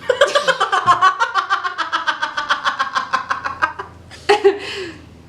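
A person laughing in a fast, steady run of pulses for about three and a half seconds, then a short separate vocal sound with a falling pitch about four seconds in.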